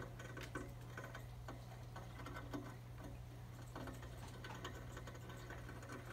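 Light, irregular clicking and scratching from pet mice moving about in plastic habitat tubes and bedding, some clicks coming in quick runs, over a steady low hum.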